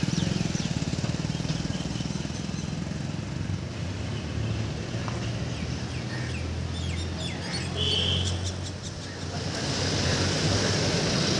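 Steady engine hum and road noise from a moving vehicle, with a few short bird chirps past the middle.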